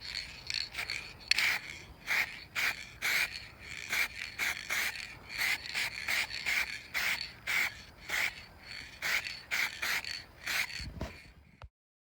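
Quick dusting strokes wiped over a car's body panel, about two scratchy strokes a second, before a coat of clear lacquer is sprayed; the sound cuts off abruptly near the end.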